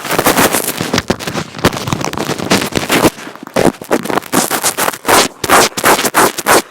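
Fingers rubbing, scratching and tapping directly on an earphone microphone, giving a loud, rapid run of crackles and thumps with brief breaks.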